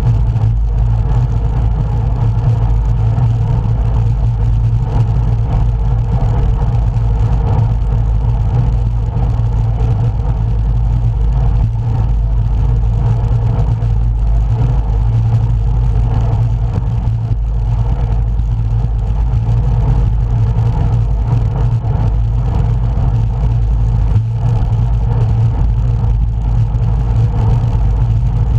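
Steady, loud rumble of wind buffeting the microphone of a camera riding along on a moving road bicycle.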